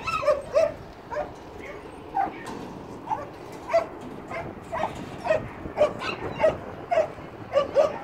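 A dog barking and yipping over and over, short high barks coming roughly twice a second.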